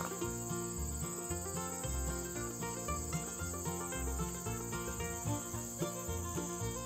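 Insects chirring in a steady, high-pitched continuous drone, with soft instrumental music underneath.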